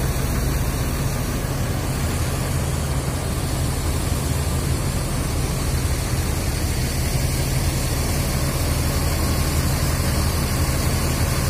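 Diesel engines of parked intercity coaches idling together: a steady low rumble with a constant hiss over it.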